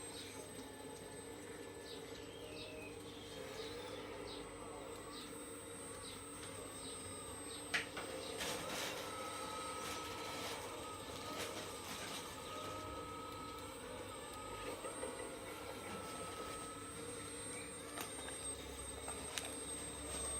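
Hydraulic pump of an RC 339DL model excavator running with a steady hum, its pitch gliding up and down as the hydraulics are worked. A sharp click comes about eight seconds in, and a few more clicks near the end.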